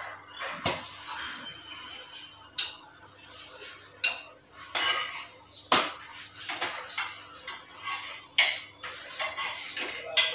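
A metal spatula clinking and scraping against a flat frying pan as a paratha is turned, with a few sharp clatters of a ceramic plate, in separate knocks a second or two apart.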